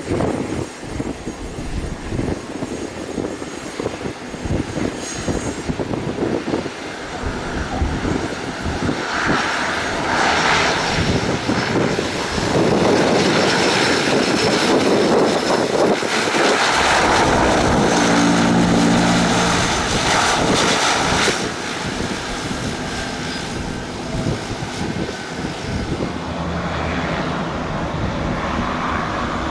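An airplane passes close by. Its engine noise swells to a loud peak in the middle and drops off suddenly about two-thirds of the way in, leaving a quieter, steady engine hum.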